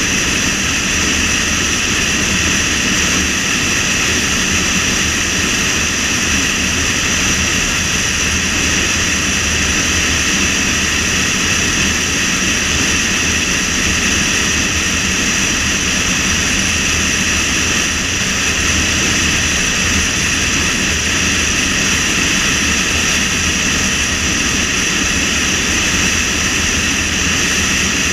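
Steady rush of wind and tyre noise from a car driving at speed on a paved road, with a steady high-pitched whine over it and no change in pace.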